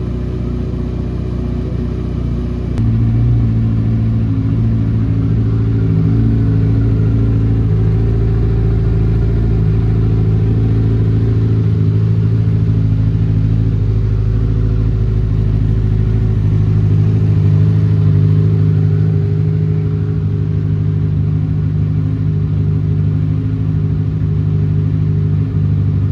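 Kawasaki Ninja 1000's inline-four engine running steadily. Its note steps up a little about three seconds in and shifts slightly again past halfway.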